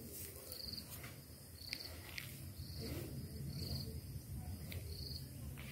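Faint insect chirping: short high-pitched trills repeating about once a second.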